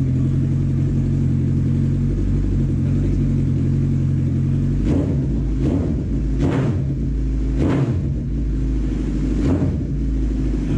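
Suzuki Hayabusa inline-four engine with a short aftermarket silencer idling steadily, then blipped through about five short, sharp throttle revs in the second half.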